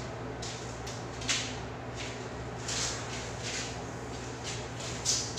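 Footsteps and shoe scuffs on a tiled floor, about five short irregular scuffs, over a steady low hum in a small tiled room.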